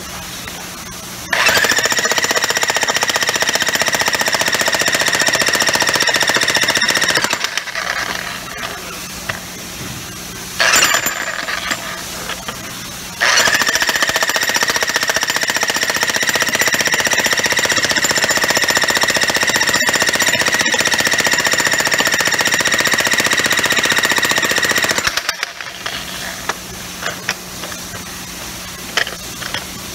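Harbor Freight Hercules 15-amp electric breaker hammer hammering in two long runs of about six and twelve seconds, with a short burst between them; a steady high ringing tone sits over the rapid blows. A low steady hum fills the pauses.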